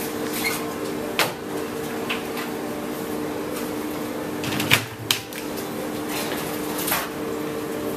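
Shop-interior ambience: a steady machine hum with scattered sharp clacks and knocks, the loudest two close together about halfway through.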